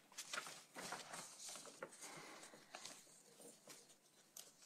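Near silence: room tone with faint rustles and small clicks.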